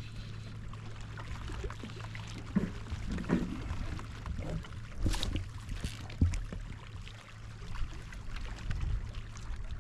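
Water sloshing and splashing against a kayak as a hooked fish is played alongside and brought to the net, with a few short splashes, the biggest about five seconds in.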